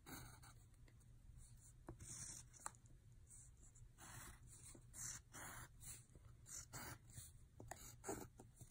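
Faint scratching of a pencil on paper in a series of short, uneven strokes.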